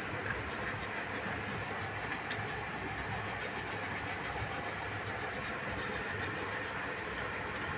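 Steady rumbling background noise at an even level, with no yowls or hisses from the wrestling cats.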